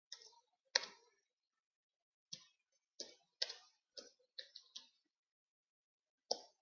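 Computer keyboard keystrokes as a console command is typed: about ten short, separate clicks at an uneven pace, several close together in the middle.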